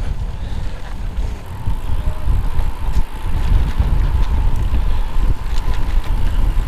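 Riding a road bicycle with a helmet-mounted GoPro Hero 4: steady wind rumble on the camera's microphone with tyre and road noise. A few light clicks come near the end.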